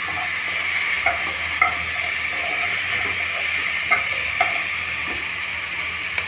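Onions and peas sizzling in oil in a pan while a wooden spatula stirs them, with a few light knocks of the spatula on the pan.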